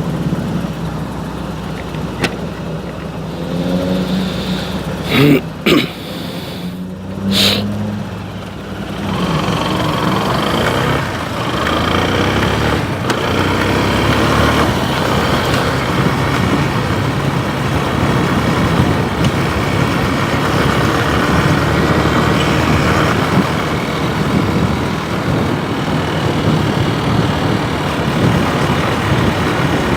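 Motorcycle engine running steadily at low revs, with a few short sharp sounds about five to seven seconds in. About nine seconds in it gives way to the louder, rougher noise of riding: engine and wind.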